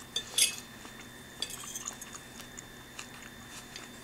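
Eating sounds: a metal fork scraping and clicking against a plate of food, with chewing, in a few short bursts about half a second and a second and a half in.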